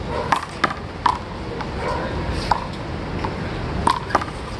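Handball rally: a small rubber ball slapped by bare hands and smacking off the wall, a string of sharp slaps at irregular intervals, two close together near the end, over a steady low background rumble.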